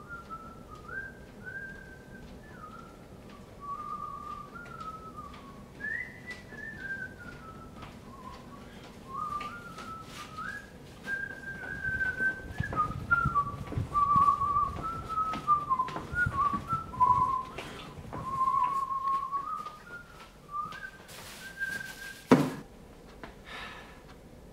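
A man whistling a tune, a wandering melody of held notes and short slides. Faint clicks run under it. The whistling stops with a sharp knock about 22 seconds in.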